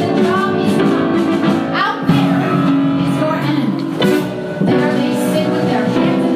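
Live musical-theatre number: a band plays with voices singing over it.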